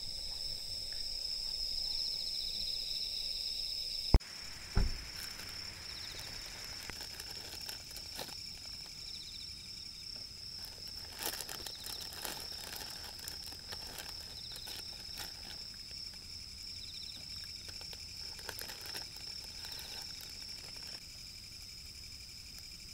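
Night insects chirping steadily in a high, unbroken chorus. There is a sharp knock about four seconds in, then scattered crinkling and small clicks as a plastic snack packet is handled beside a small campfire.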